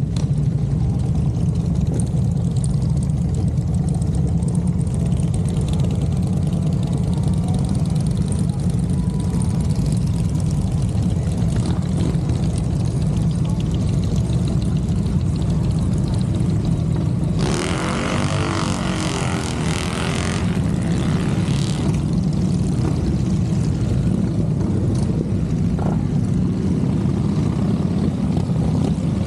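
A line of big touring motorcycles riding slowly past one after another, their engines making a steady low rumble. A little past halfway, a louder rush of sound for a few seconds as one passes close.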